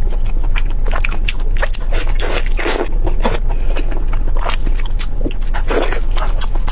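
Close-miked eating: a person biting and chewing crunchy food in a quick run of wet clicks and crunches, with two longer noisy swells, one about two and a half seconds in and one near the end. A steady low hum runs underneath.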